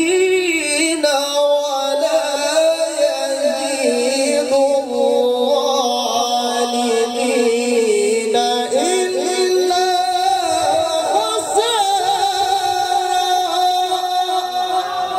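A man reciting the Qur'an in a long, ornamented melodic chant through a microphone, holding drawn-out notes with wavering turns; about two-thirds of the way in the line climbs to a higher held pitch.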